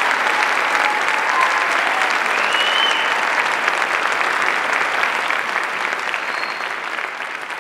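A concert audience applauding, with a few short calls over the clapping. The applause begins to die down near the end.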